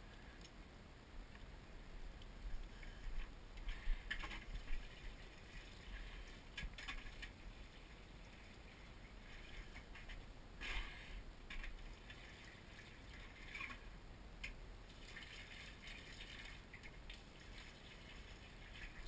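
Faint rustling with scattered light clicks and knocks from someone moving among greenhouse plants, over a low rumble.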